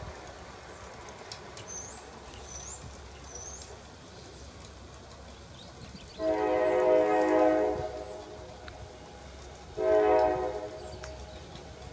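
Diesel freight locomotive horn sounding from an approaching train, two blasts about two seconds apart: a longer one of about a second and a half, then a shorter one. Before the horn, a bird chirps three times, and a low rumble of the train grows under the second half.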